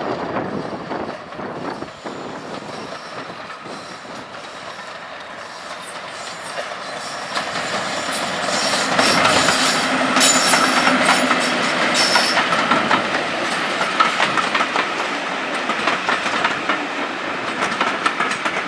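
A BR Class 50 diesel-electric locomotive hauling a passenger train past, its English Electric engine running and its wheels clattering over the rail joints. It grows louder to a peak about halfway through as the locomotive passes close, then eases off slightly.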